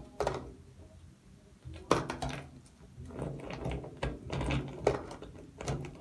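Dried uda (negro pepper) pods being pushed by hand through the neck of a plastic bottle: irregular clicks and knocks of pods and fingers on the plastic, with a cluster of sharp clicks about two seconds in and more near the end.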